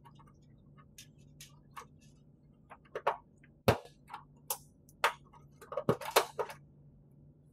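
A hand crimping tool squeezed again and again to crush an eyelet terminal onto a stripped wire: a run of irregular sharp clicks and snaps, loudest about three and a half seconds in and in a cluster around six seconds. The tool has no die of the right size for the eyelet, so the terminal is being crushed down rather than crimped in a matching die.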